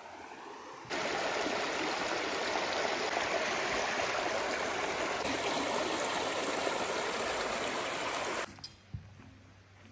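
Creek water rushing over a low rock cascade, a loud steady splashing rush. It starts abruptly about a second in, after a softer trickle, and cuts off suddenly near the end, leaving faint background with a couple of light clicks.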